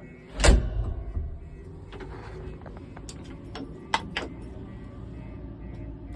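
A loud clunk about half a second in, then a few sharp clicks and knocks, as the cab door and fittings of a Tata Hitachi EX200 excavator are handled, over a steady low rumble.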